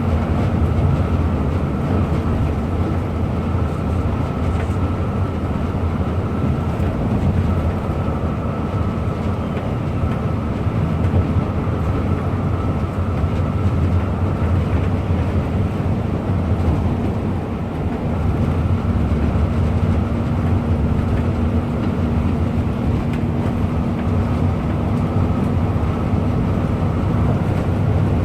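Coach bus on the move: steady engine drone and road noise with a faint steady whine above it, holding an even speed throughout.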